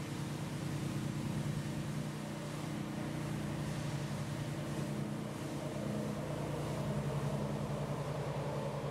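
An engine idling nearby: a steady low hum with a fast, even pulse.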